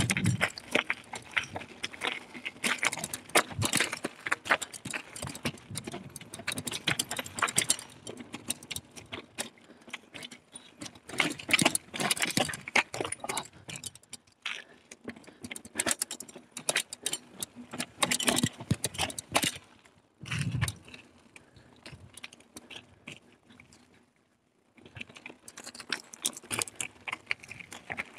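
Carrera Hellcat mountain bike rattling over a rough trail: a dense, irregular clatter of knocks and rattles. It eases off for a few seconds about two-thirds of the way through, then picks up again.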